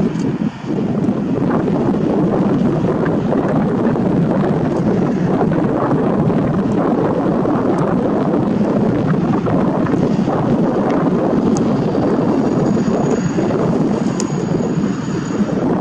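Track tamping machine's diesel engine running steadily as the machine rolls slowly along the rails, mixed with wind buffeting the microphone. A faint high-pitched whine joins about twelve seconds in.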